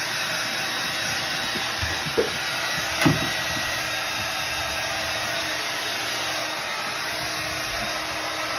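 Hair dryer running steadily, with two short knocks about two and three seconds in.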